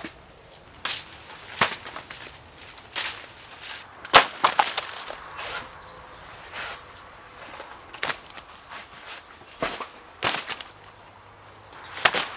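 Irregular sharp cracks and crunches of dry banana leaves and stalks being broken or trodden on, about a dozen over several seconds. The loudest comes in a quick cluster about four seconds in.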